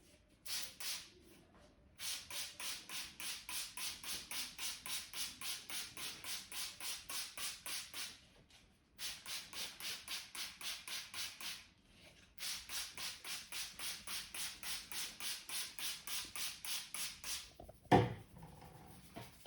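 Barber's hands working rapidly over a customer's scalp and hair in a head massage: fast, even rubbing or tapping strokes about four to five a second, in three runs with short pauses between. Near the end comes a single sharp crack, the loudest sound.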